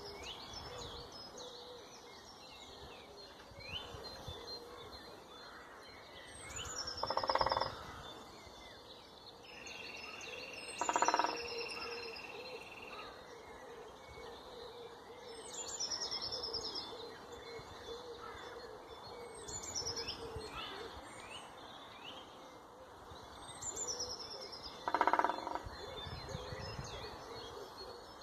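A woodpecker drumming on wood in three short, rapid rolls of evenly spaced knocks. Around them, songbirds sing a short, high, falling phrase that repeats every few seconds over a steady background of birdsong.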